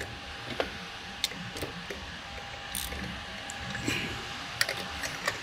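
Scattered light clicks and knocks of hand tools working in a car's engine bay, irregular and a second or so apart, over a steady low hum.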